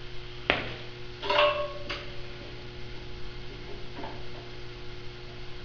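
A sharp metal click, then about a second in a louder steel clank that rings briefly, and a smaller knock, over a steady electrical hum.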